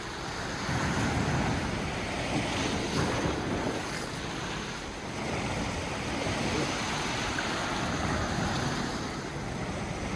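Waves breaking and washing on the shore, swelling and easing, with wind buffeting the microphone.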